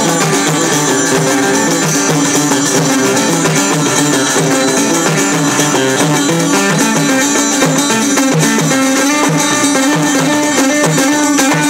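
Moroccan Amazigh folk ensemble playing: a plucked lute carries a repeating melody over a steady beat on frame drums.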